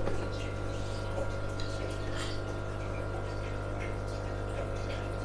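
Aquarium sponge filter bubbling, with the steady low hum of its air pump and a few faint light ticks and splashes at the water surface.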